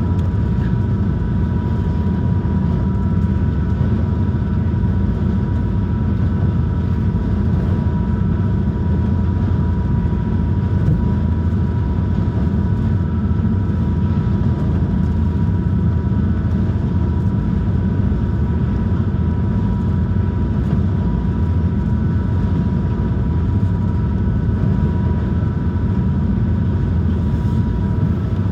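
High-speed passenger boat running at cruising speed, heard inside the cabin: a loud, steady low engine drone with thin steady whining tones above it.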